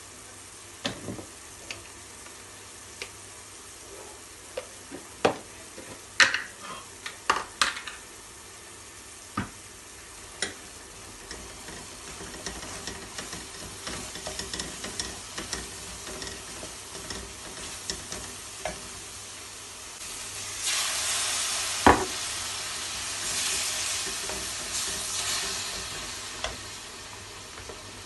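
Onions and spice paste frying in an aluminium karahi, stirred with a wooden spoon that knocks and scrapes against the pan. Separate knocks come through in the first third; later the sizzle runs steadily and grows louder for a few seconds near the end, with one sharp knock in the middle of it.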